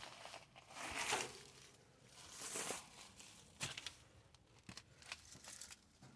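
Rustling and scraping noises, loudest about a second in and again around two and a half seconds, followed by a few short sharp clicks.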